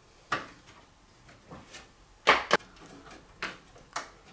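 Screwdriver and screws clicking against the metal expansion-slot bracket of a PC case as the graphics card's retaining screws are backed out: about seven sharp clicks and taps, the loudest pair a little past halfway.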